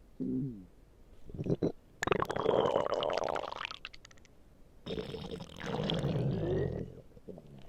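A person's stomach growling in a series of gurgles: a short falling one at the start, then two long rumbles about two and five seconds in, with thin rising and falling squeaks over them.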